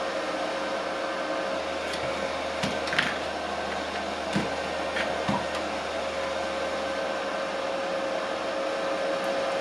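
Foxweld Korund 220 welding inverter running on its trial start, its cooling fan blowing steadily with a constant mid-pitched whine. A few light clicks and taps come through it.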